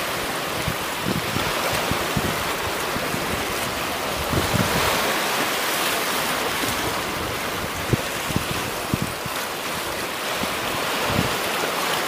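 Water washing against shoreline rocks: a steady rush with soft, low splashes now and then as small waves lap in.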